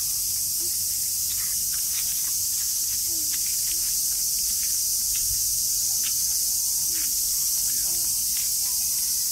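A chorus of cicadas buzzing steadily and high-pitched, without a break.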